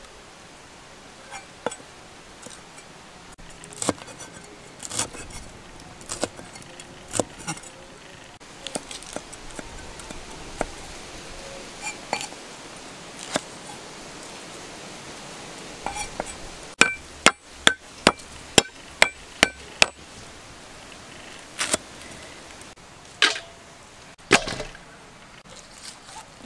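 Knife chopping vegetables on a thick wooden stump cutting board: scattered knocks and taps, then a quick run of about ten sharp chops, roughly three a second, a little past halfway, with a few more chops near the end.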